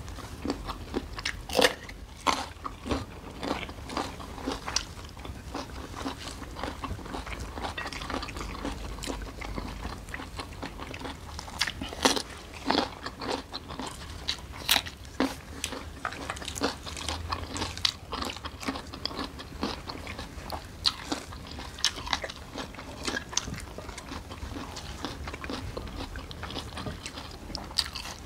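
Close-up eating sounds: crisp crunching bites into raw green Thai eggplants and chewing, an irregular run of sharp crunches and wet clicks with a few louder bites.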